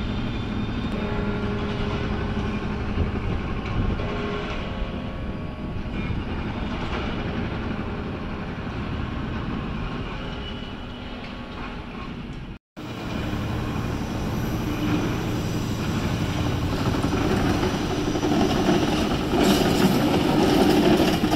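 Passenger train running on the tracks, with a steady hum made of a few held tones. After an abrupt break about two-thirds of the way in, a train grows louder as it approaches.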